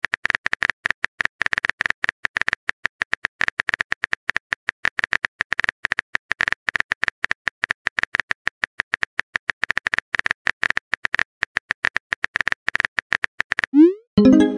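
Rapid, irregular keyboard-tap clicks of a texting app's typing sound effect as a message is typed, each a short sharp click. Near the end a short rising whoosh and a brief pitched chime as the message is sent.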